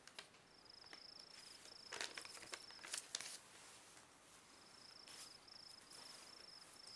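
Faint cricket chirping in short, even trills that pause for a couple of seconds midway, with a few soft rustles and clicks about two to three seconds in.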